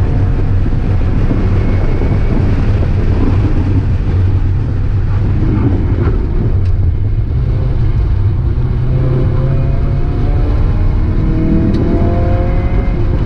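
Mazda Miata's four-cylinder engine running hard on track, its pitch rising as it accelerates in the later seconds.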